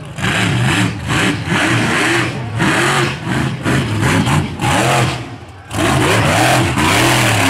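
Mega truck's engine revved hard and let off again and again, its pitch sweeping up and down in quick repeated surges, with a brief lull about five and a half seconds in.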